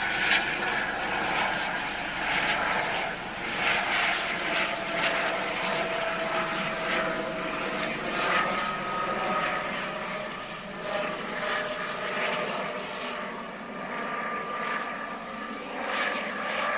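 Helicopter flying overhead: a steady engine and rotor drone whose tones drift slowly in pitch as it passes.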